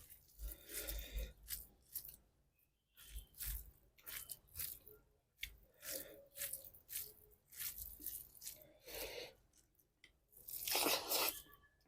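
Chewing and crunching of food close to the microphone, in short irregular bursts, with a longer, louder burst near the end.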